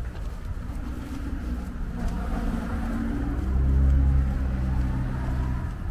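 A motor vehicle's engine running low and steady as it goes slowly by, swelling to its loudest about four seconds in, then easing off.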